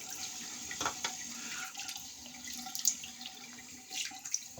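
Water running from a tap into a sink, with a few short splashes or knocks.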